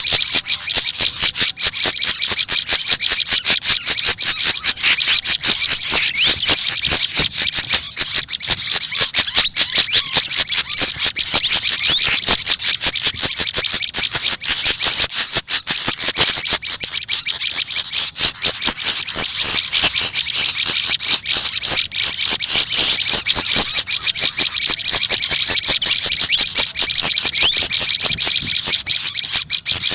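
Small songbirds calling in a loud, continuous, high-pitched chatter of rapid short notes, with no pause across the half-minute.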